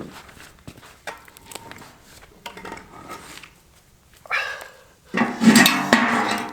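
Scattered light footsteps and knocks, then a dog calls twice near the end: a short call, then a longer, louder one.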